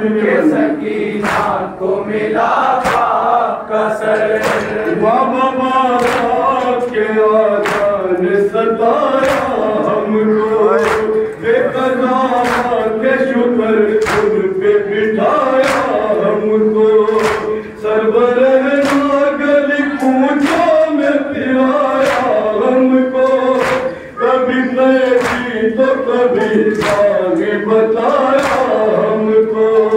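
A group of men chanting an Urdu noha, a Shia lament, in unison through a microphone and loudspeaker. Under it runs a steady beat of sharp slaps a little more than once a second, the mourners' matam (hands striking the chest).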